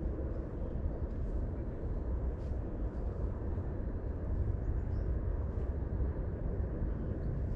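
Steady low rumble of outdoor background noise, with no distinct event.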